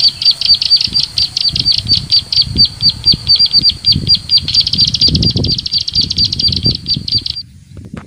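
Recorded bird-call lure played from a phone speaker: a fast, very even series of high chip notes, about seven a second, that cuts off abruptly near the end. Wind rumbles on the microphone underneath.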